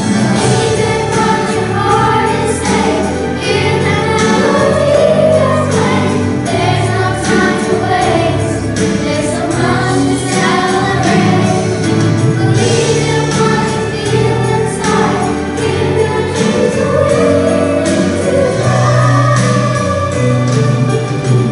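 Children's choir singing a holiday song in unison over a recorded accompaniment with a steady beat.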